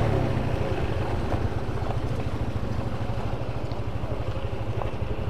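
Motorcycle engine running steadily at low speed, a low, evenly pulsing putter.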